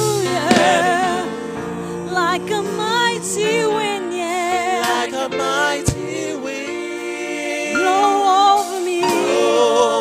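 Gospel worship music: a voice singing long, wavering runs with heavy vibrato over held accompaniment chords, with a single sharp click about six seconds in.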